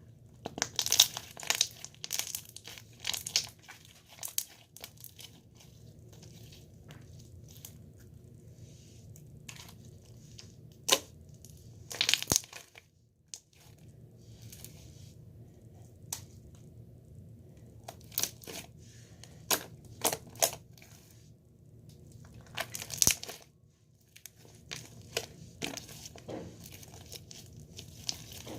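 Irregular crinkling and crackling handling sounds with scattered sharp clicks, over a low steady hum; the loudest clusters come about a second in, around the middle and a few seconds after that.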